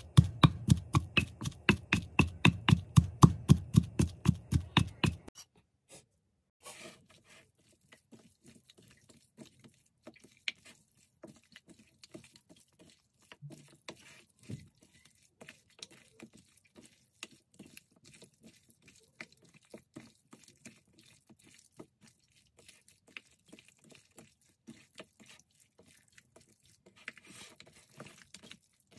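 Pestle pounding in a clay mortar: quick, even strikes, about four to five a second, stopping about five seconds in. Then faint wet squelches and clicks of hands mixing raw chicken in marinade in a ceramic bowl.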